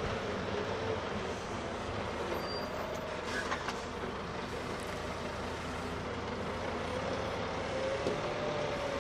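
Heavy tipper truck towing a drawbar trailer, rolling slowly past on crushed-stone gravel: diesel engine running steadily with tyre and gravel noise. A wavering squeal comes at the start and again near the end.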